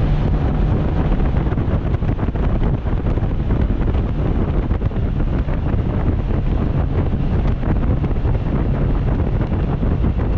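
Loud, relentless wind blast buffeting an unshielded GoPro Hero 7 microphone on a motorcycle moving at road speed. The rushing drowns out almost everything else.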